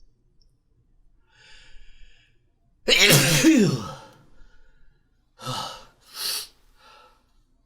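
A person sneezing: a breathy intake of breath, then a loud voiced sneeze about three seconds in whose pitch drops away at the end. Two short breathy bursts follow about two seconds later.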